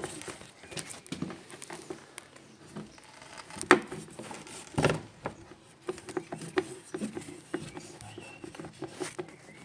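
Scattered clicks and light knocks of a hand tool working out the four screws that hold a plastic washing machine's pulley, with two sharper knocks about four and five seconds in.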